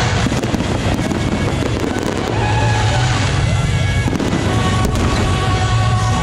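Fireworks crackling and popping in a dense, continuous barrage, with loud music playing underneath.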